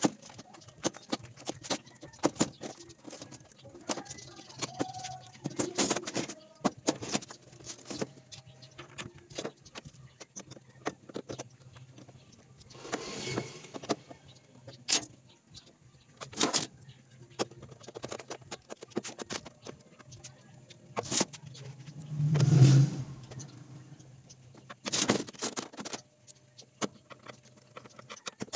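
Hollow plastic back cover of an old CRT television being handled and fitted onto its cabinet: irregular knocks, taps and scrapes of plastic, with the heaviest thump about three quarters of the way through. A steady low hum runs underneath.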